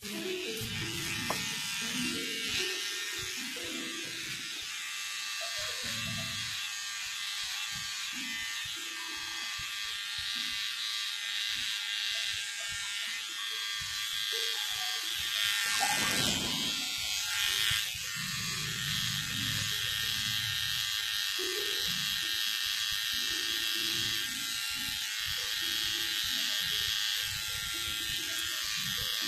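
Corded electric hair clippers running with a steady buzz as they cut a man's short hair.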